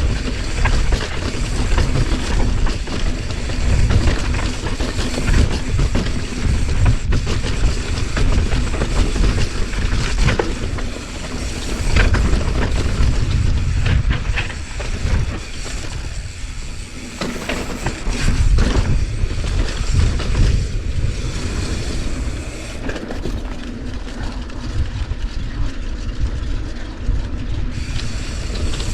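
Mountain bike riding fast down a rough dirt trail: a heavy low rumble of wind and tyres, broken by frequent sharp rattles and knocks from the bike.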